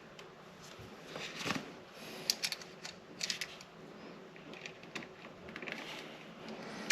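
Scattered light clicks, scrapes and rustles of hands working on electrical wiring and a switch, with a few sharper clicks in the first half.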